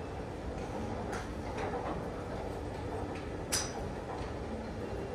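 Golf club striking a ball off a driving-range mat: one sharp crack about three and a half seconds in, over a steady background hiss, with a few fainter clicks before it.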